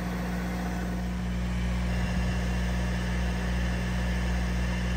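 Mercedes GLA's 2.1-litre four-cylinder diesel running steadily at a raised idle during a scan-tool-forced DPF regeneration, which burns the soot out of the particulate filter. It is heard at the tailpipe and grows slightly louder about two seconds in.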